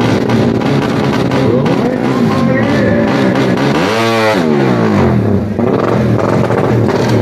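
Tuned four-stroke underbone (bebek) racing motorcycle engines revving at the drag start line, the pitch wavering up and down, with one sharp rev that climbs and falls about four seconds in.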